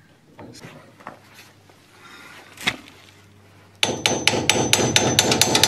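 Small hammer tapping metal on a Morris Minor's rear brake backplate assembly, driving a stiff part into place. After a few light clicks of parts being handled, quick even taps begin almost four seconds in, about six a second, with a faint metallic ring.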